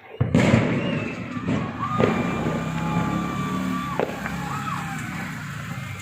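Fireworks going off: a sudden loud bang just after the start, then continuous crackling and popping. A steady high tone is held for about two seconds in the middle.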